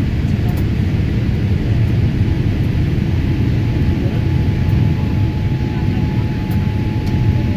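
Cabin noise of a Boeing 787 Dreamliner rolling down the runway after touchdown: a loud, steady low rumble from the engines and landing roll, with a faint steady whine above it.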